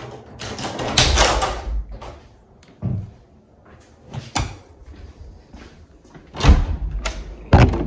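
A door being opened and shut: a rustling scrape about a second long near the start, then several sharp knocks and thumps, the loudest near the end.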